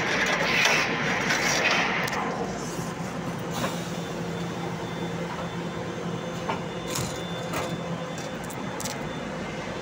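Cling film winding machinery running with a steady hum, a loud hiss for the first two seconds, and a few sharp clicks and knocks later on.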